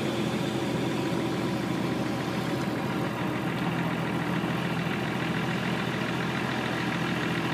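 Off-road 4x4 vehicle engine running steadily at a constant pitch.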